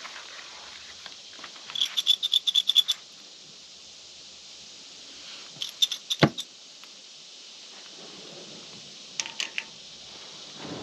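Small metal objects clinking and jingling: a quick run of about ten ringing clinks about two seconds in, a few more clinks with one sharp knock around six seconds, and a couple more just before the end.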